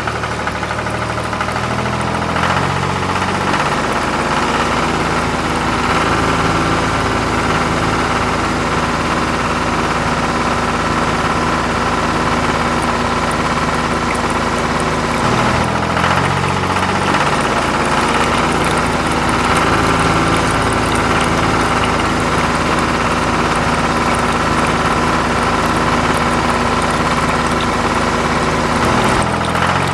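A steady, engine-like running sound whose low tones step up and down in a pattern that repeats about every thirteen seconds, the way a looped tractor-engine sound track does.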